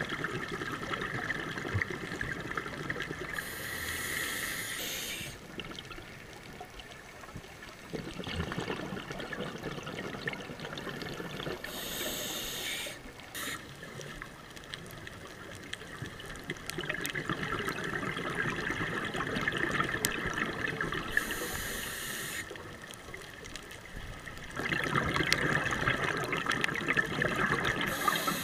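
Scuba diver breathing through a regulator underwater. A long bubbling rush comes about every eight seconds, four times, each ending in a brief sharp hiss.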